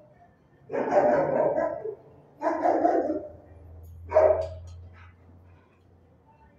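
Dog barking in three bursts, the first two about a second long, the third shorter.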